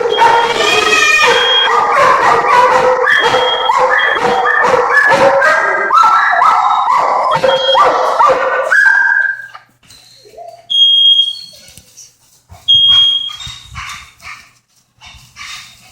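Dogs howling and barking at a smoke alarm, which sounds in repeated high-pitched beeps. The dogs' howling runs continuously and stops about nine seconds in. After that the alarm beeps twice more, with a few short barks.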